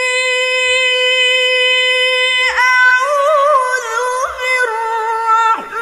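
Solo voice singing a high note held steady, then from about two and a half seconds in a wavering, ornamented melody.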